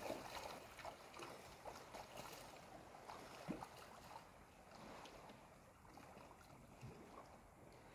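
Near silence: faint background hiss with a few soft, brief noises.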